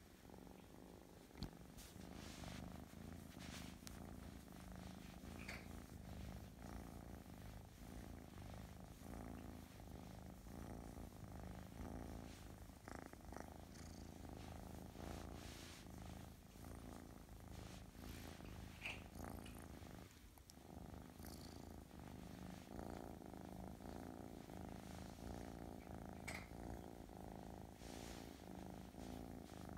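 Russian Blue kitten purring steadily while being stroked, a contented purr close to the microphone that briefly falters about two-thirds of the way in. A few faint clicks sound over it.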